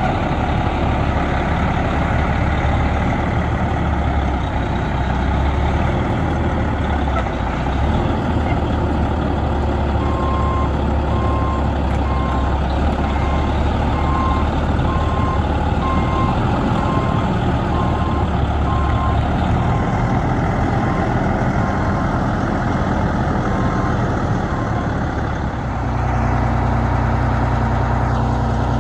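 2005 Peterbilt 357 dump truck's diesel engine running steadily, with a repeating alarm beep through the middle stretch. About 26 seconds in, the engine note steps up and steadies as the dump body's hydraulic hoist starts raising the bed.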